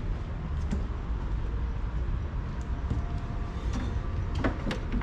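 Steady low background rumble, with a few sharp knocks about four and a half seconds in.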